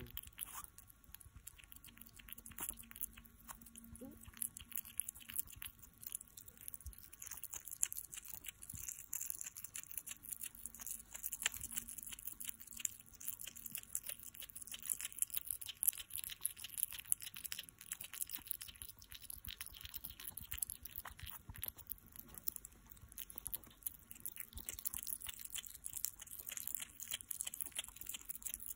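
Hedgehog chewing a quail egg, a fast, steady stream of small clicks.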